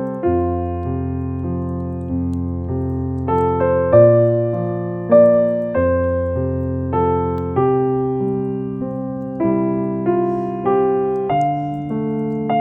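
Background piano music: single notes and chords struck one after another and left to ring out, at an unhurried pace.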